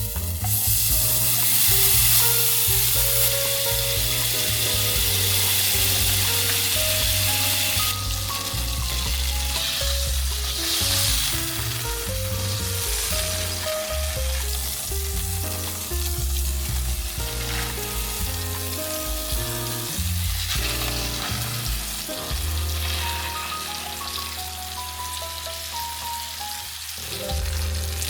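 Food sizzling as it fries in a pan, a steady hiss that is loudest in the first several seconds, under soft background music with a melody and bass line.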